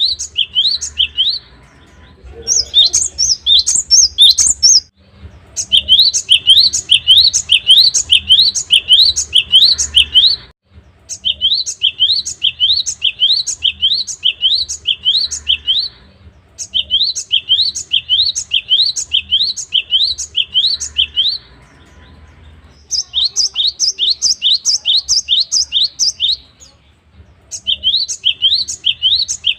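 Cinereous tit (gelatik batu) singing: runs of sharp, rising whistled notes repeated about three a second, each run lasting several seconds with brief pauses between. Twice a higher, faster phrase breaks in.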